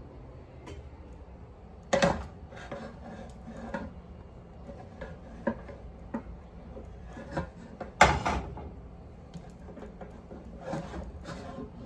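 Kitchen handling sounds: cookware and utensils being moved and set down, with a few knocks and light clatters and two louder knocks, about two seconds in and near eight seconds in.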